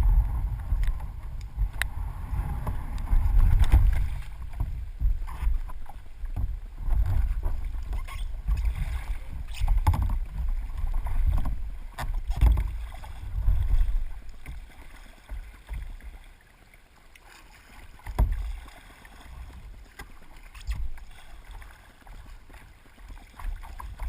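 Kayak being paddled down a river: paddle strokes swishing through the water every couple of seconds, with a few sharp knocks, quieter in the last third.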